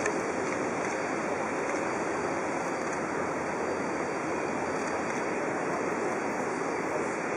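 Steady rushing noise of sea water and wind, unchanging throughout.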